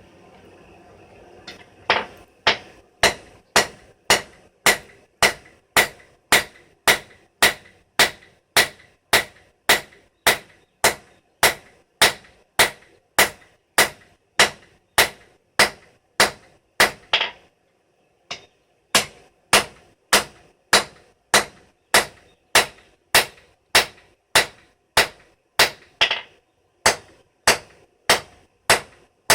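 Blacksmith's hammer striking hot steel on an anvil, a steady run of sharp ringing blows, a little under two a second, drawing the stock out thinner. The hammering breaks off for about a second about two-thirds of the way through, then picks up again.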